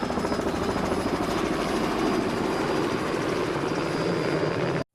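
Helicopter rotor and engine sound, a steady rapid beat that cuts off suddenly near the end.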